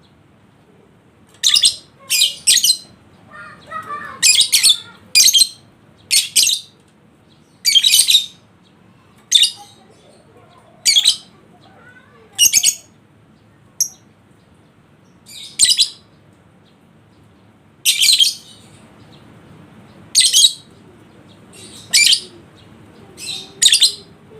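Lovebird giving short, shrill, harsh chirps, about fifteen single or doubled calls at irregular intervals of around a second.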